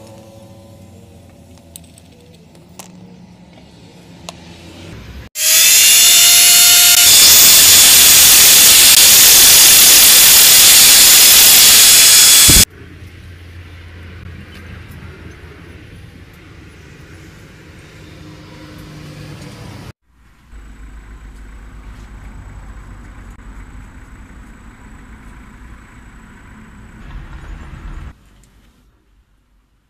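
Angle grinder with an abrasive cutting disc spinning up with a rising whine and then cutting steel rod, very loud for about seven seconds before it stops abruptly. A quieter steady hum and a few light handling knocks fill the time before and after.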